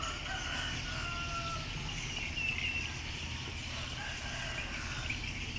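Outdoor riverside ambience: a steady low rumble with a few faint, short animal calls in the distance.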